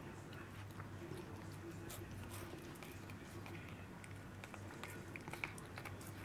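A cat chewing and gnawing on an electric toothbrush head, with soft scattered clicks and crunches of teeth on the bristles. Under them runs a faint steady low hum.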